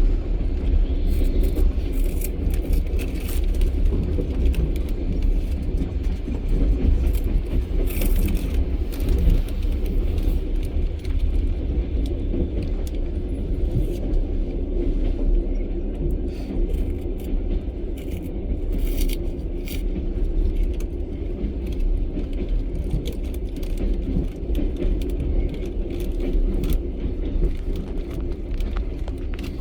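Passenger train carriage running along the track, heard from inside: a steady low rumble with rattles and scattered clicks of the wheels over the rails.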